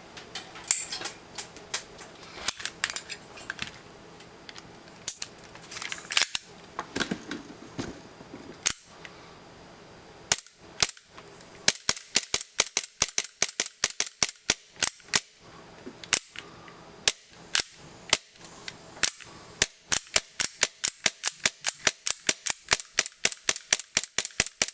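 Tokyo Marui Glock 17 gas blowback airsoft pistol dry-firing on gas without BBs, each shot a sharp crack of the slide blowing back. A few scattered shots come first, then from about ten seconds in a steady run of rapid shots, about three a second. The hammer now releases on every trigger pull, which shows that the too-short trigger bar tab that was rubbing along the sear has been fixed.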